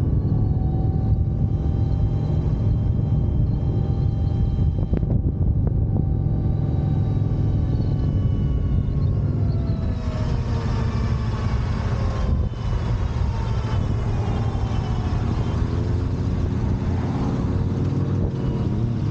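Wind buffeting and road rumble from a motorcycle ride at speed, with thin whining tones sliding up and down in pitch, busier in the second half.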